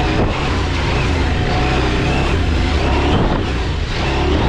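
KTM 790 Adventure R's parallel-twin engine running steadily as the bike is ridden along a dirt trail.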